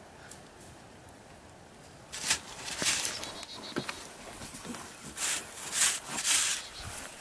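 Faint outdoor background, then from about two seconds in a run of irregular scraping and crunching strokes in loose excavated dirt, such as a shovel working the soil or steps on it.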